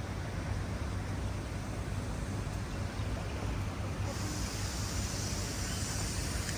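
Steady outdoor background noise: a low rumble under a broad hiss, the hiss growing brighter about four seconds in.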